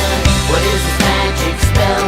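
Upbeat pop song playing, a stretch between sung lines with a steady beat and bass.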